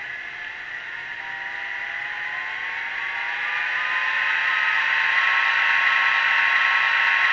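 Digitrax SDH164D sound decoder playing a diesel locomotive engine sound through a small speaker in a model locomotive, notching up: the engine tone rises in pitch over the first few seconds, then holds while it grows steadily louder.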